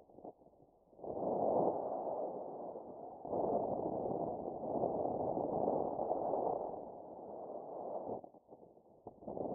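Wind rushing over the microphone in uneven surges, dropping away almost entirely for about the first second and again for about a second near the end.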